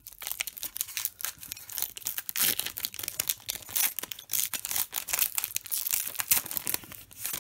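Foil wrapper of a Pokémon trading card booster pack being torn open and crinkled by hand: a dense, irregular run of sharp crackles and rips.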